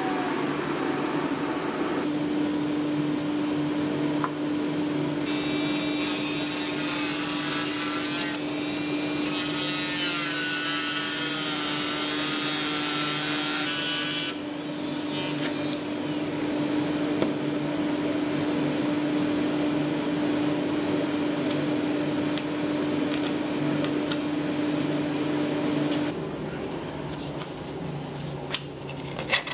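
A corded handheld power tool runs with a steady hum as it is worked against the wooden handle of a carved cup, rounding and smoothing the edges. Its sound turns harsher and rougher for several seconds while it bites into the wood. It stops a few seconds before the end.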